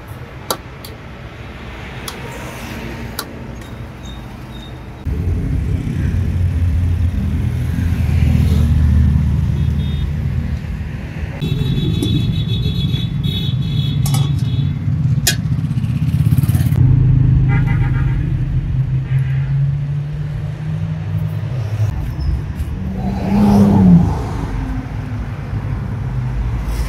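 Road traffic: car engines running and passing, a steady low rumble that grows louder about five seconds in, with a brief swell near the end. A few light clicks are scattered through it.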